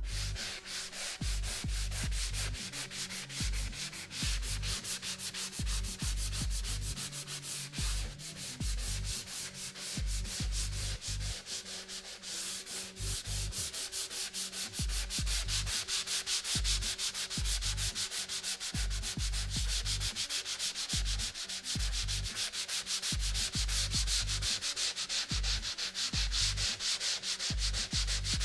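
Hand sanding dried 20-minute joint compound on a drywall patch with a coarse 80-grit sanding sponge: a steady, rapid scratching of back-and-forth strokes, a little louder in the second half.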